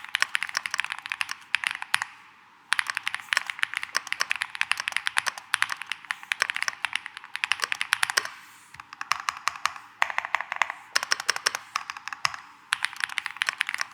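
Typing on a VGN V87 tenkeyless mechanical keyboard: fast runs of sharp key clacks, several strokes a second, broken by brief pauses two or three times.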